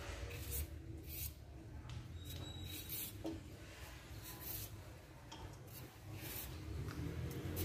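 Vegetable peeler scraping skin off a cucumber in short, faint strokes, roughly one a second, over a low steady hum.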